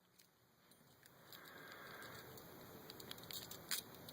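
Faint handling noise: scattered small clicks and light rustling as the picked-open padlock and Swiss Army knife tools are handled, getting a little busier in the second half.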